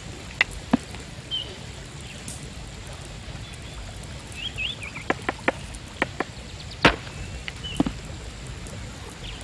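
Scattered sharp knocks, a few single ones and a quick cluster of four or five about five to six seconds in, with short bird chirps in the background.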